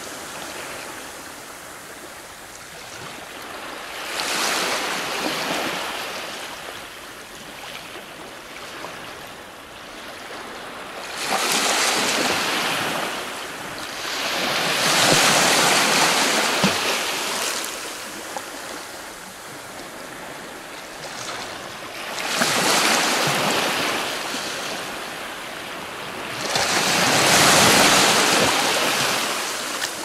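Ocean surf breaking against a rocky shore. Five or so waves surge in as rising and falling washes of hiss at irregular intervals; the loudest come near the middle and near the end.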